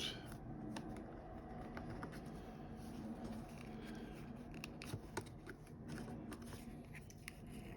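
Faint handling noise: scattered small clicks and scrapes of fingers working on the small plastic parts and spring of a vintage Talking Barbie's voice unit.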